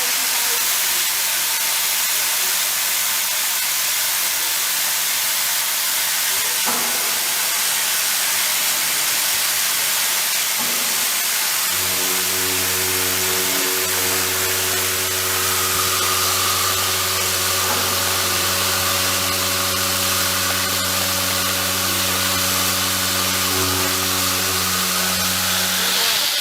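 SDV-HLA milling machine doing heavy milling: a steady hiss throughout. About twelve seconds in, a steady low hum with overtones sets in and holds until near the end.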